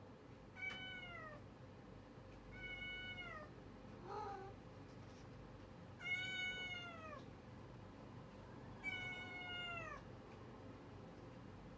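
A domestic cat meowing four times, a few seconds apart. Each meow lasts about a second, holds its pitch and then drops at the end. A short, softer sound comes between the second and third meow.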